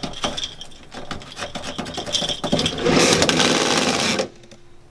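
Car seatbelt hardware rattling and scraping as the belt is pulled and worked. About three seconds in comes a loud rushing burst lasting just over a second, which then cuts off suddenly.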